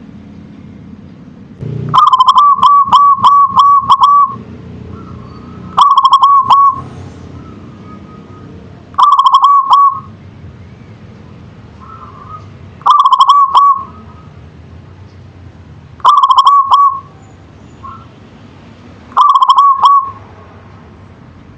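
Zebra dove (perkutut) cooing: six phrases of rapid, pulsing notes, repeated every three to four seconds, the first phrase the longest.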